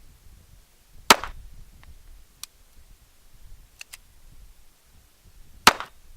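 Two shots from a .357 Magnum snub-nose revolver, about four and a half seconds apart, each a loud sharp crack with a short ring after it. Fainter, shorter cracks come in between.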